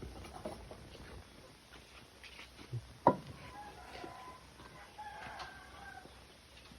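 A rooster crowing faintly in one long, held call from about three and a half seconds in, just after a short sharp call that falls in pitch.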